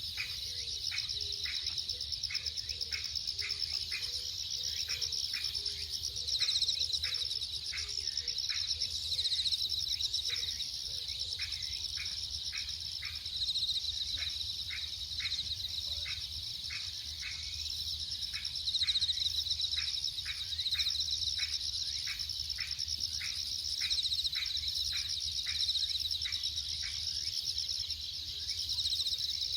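A steady, shrill chorus of autumn insects, bell crickets and crickets. Through it runs an even series of short calls, about two a second, and a low dove-like cooing during the first dozen seconds.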